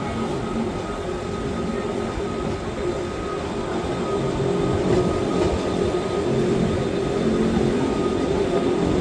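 Electric rack-railway train of the Wengernalpbahn running along the line: a steady rumbling run with a faint hum over it, growing a little louder about halfway through.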